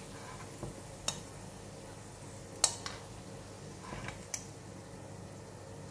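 A metal spoon clinking and scraping against a nonstick wok and a small glass bowl as fried garlic is scooped out: a few scattered sharp clicks, the loudest about two and a half seconds in, over a faint steady background.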